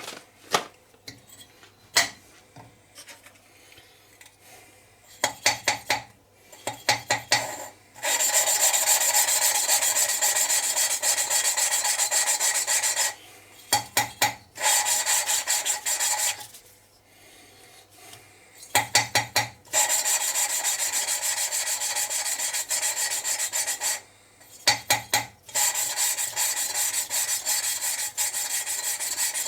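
Valve being lapped into its seat on a Kubota diesel cylinder head with grinding paste: long stretches of gritty rasping as the valve is turned on the seat, broken by short runs of quick ticks as it is lifted and tapped back down.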